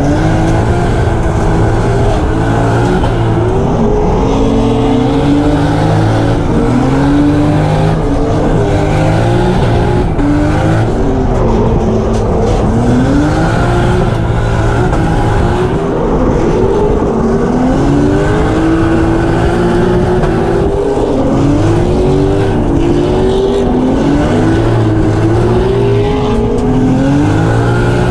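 Drift car's engine revving hard, its pitch swinging up and down again and again as the throttle is worked through a slide, over a dense roar of engine and tyre noise.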